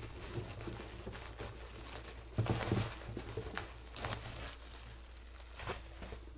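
Bubble wrap being handled and pulled off a packed box: scattered crinkles and crackles, the loudest cluster about two and a half seconds in.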